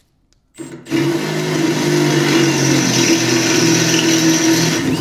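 Cordless drill boring a 13/32-inch hole through the steel snowblower side plate, its motor running steadily under load for about four seconds. It starts about a second in and stops just before the end.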